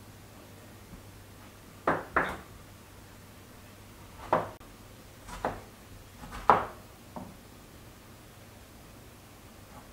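Kitchen knife slicing through tomato halves and knocking on a wooden cutting board: about six sharp knocks at irregular intervals, the loudest about two-thirds of the way in.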